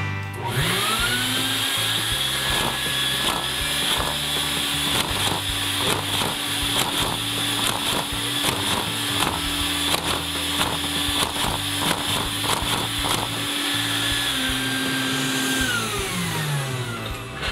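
Vacuum cleaner motor whining up to speed, running steadily through a hose held to a LEGO vacuum engine with round pistons, which clicks rhythmically as it runs. Near the end the whine drops and winds down in pitch as the hose comes away.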